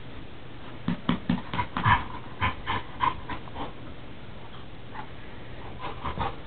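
Pet dog vocalizing during play: a quick string of about ten short sounds over roughly three seconds, then a few more near the end.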